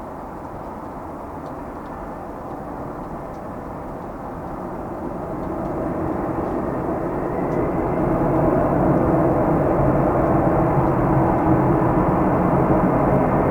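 Boeing 747-400's jet engines landing on a wet runway, growing steadily louder over the first half and holding loud and steady from about halfway in, with a humming tone and a faint whine.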